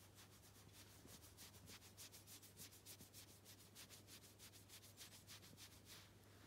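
Faint, quick scratchy rubbing of a hand over a kitten's fur, many short strokes in a row, with a faint steady hum underneath.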